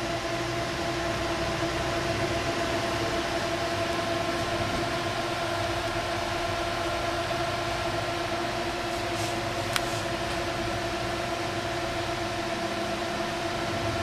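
Four Delta AFB1212SH 120 mm fans running at full speed on a water-cooling radiator: a steady, quite noisy rush of air with several steady humming tones under it. One brief click near ten seconds in.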